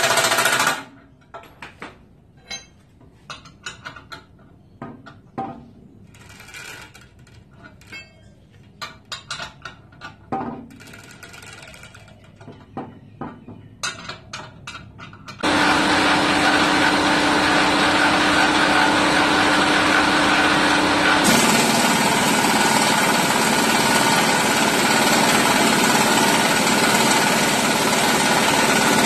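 A power tool runs continuously on the bearing extractor's threaded rod, pulling a bearing out of a Porsche 944 torque tube. It starts about halfway through, after a stretch of scattered clicks and knocks as the tool is fitted, and its tone changes about three-quarters of the way in.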